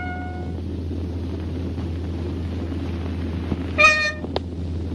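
Steady low hum and hiss of an old film soundtrack, with a short ringing tone and a click about four seconds in.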